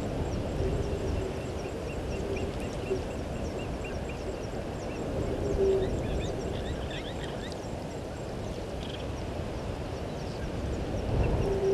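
Outdoor bush ambience: low calls repeated at irregular intervals, the strongest about six seconds in and another near the end, with bird chirps and a steady high insect-like ticking, over a low rumble.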